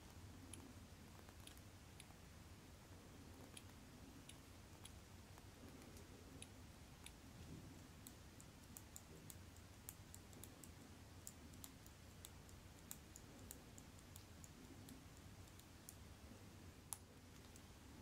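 Faint, irregular small clicks over a low steady hum, one sharper click near the end.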